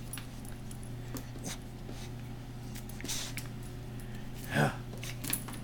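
Small dog tugging and worrying a rope toy, with faint scuffs and taps, a breathy snort about three seconds in and a short vocal sound about a second and a half later, over a steady low hum.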